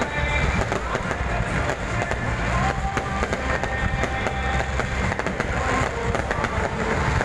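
Aerial fireworks bursting overhead, a continuous run of bangs and crackles over a low rumble, with music playing alongside.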